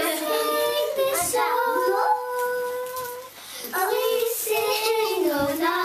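Children singing unaccompanied, holding long notes, with a short break about three and a half seconds in and a falling note near the end.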